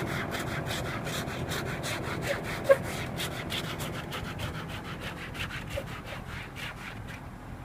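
Ice being scraped off a frozen car, a quick steady run of rasping scraper strokes, about three or four a second, that stop about seven seconds in. A single sharp tap about three seconds in.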